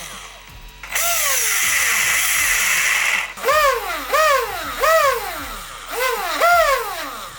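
Traxxas Sledge's electric motor, freshly fitted with new bearings, revved in a series of quick throttle blips: its whine rises and falls in pitch with each one. About a second in, a burst is held for around two seconds as a steady hissing whirr.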